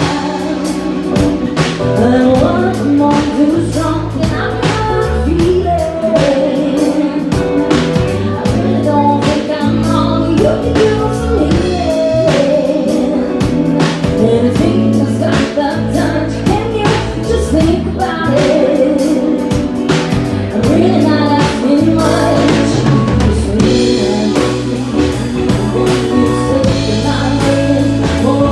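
A live band playing a song: a singer over a steady drum beat and a bass line, with other instruments.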